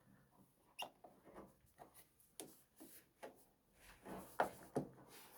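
Faint, scattered clicks and light scraping of hands handling the plastic and metal parts of a partly dismantled washing machine. The clearest clicks come about a second in and again near the end.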